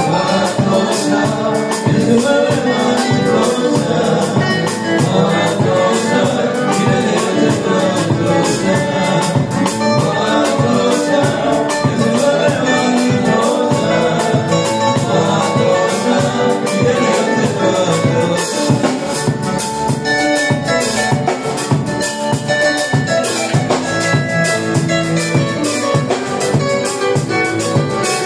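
Live gospel band playing: drum kit, electric guitar and keyboard, with singing over a steady beat.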